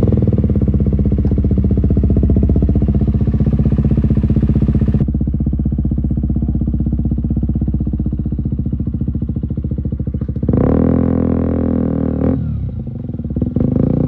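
KTM Duke 125's single-cylinder engine running through an Akrapovic exhaust with a decat link pipe, idling steadily. About ten seconds in it revs up and the note falls back, and near the end it revs again.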